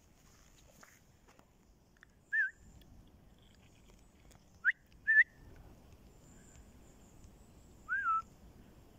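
A person whistling to call a dog: four short whistles, one about two and a half seconds in, a quick rising whistle and another just after it around the middle, and a last falling whistle near the end.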